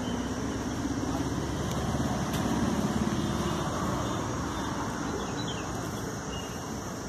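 Motor vehicle engine noise, swelling about two to three seconds in and then fading.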